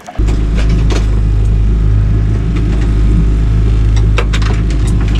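Boat's outboard motor running, a loud steady low drone, with a few light knocks from the boat.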